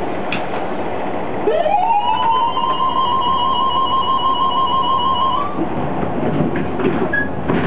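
An Uerdingen railbus's horn sounding one long note of about four seconds, sliding up in pitch as it starts and then holding steady, over the railbus's running noise with a few clicks from the rails.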